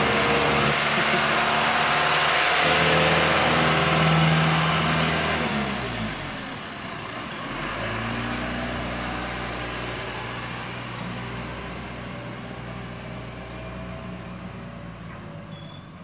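John Deere 310L backhoe loader's diesel engine running as the machine drives past, loud at first, then dropping in pitch about six seconds in and fading steadily as it moves away.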